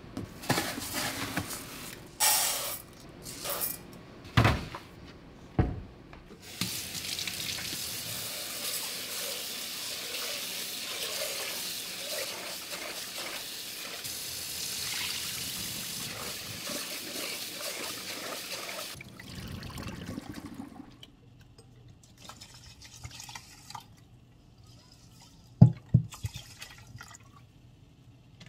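A few clicks and knocks of a plastic container being handled, then a kitchen tap running into a stainless steel pot for about twelve seconds while rice is rinsed in it by hand. After the water stops, one sharp knock, the loudest sound, comes a few seconds before the end.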